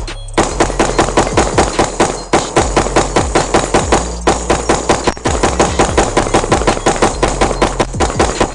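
AR-15-style rifle firing long rapid strings, about six shots a second, with brief pauses about two and four seconds in, over background music with a steady bass.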